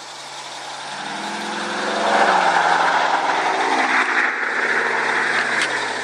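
Exhaust of a 2002 Chrysler 300M Special's 3.5-litre V6, heard from outside the car. It runs at idle, then rises in revs about a second in and is held loudest for about three seconds. It then eases back toward a lower idle near the end.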